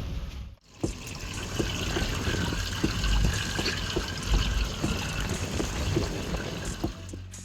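Water running and splashing steadily, with many small scattered clicks through it.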